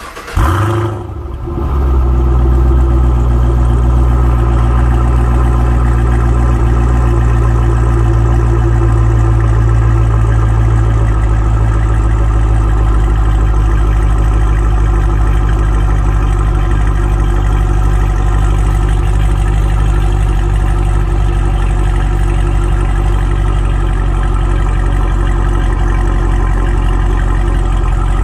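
Chevrolet SS's 6.2 L LS3 V8 and its exhaust catching at start-up with a brief flare of revs, then settling within about two seconds into a steady, loud idle.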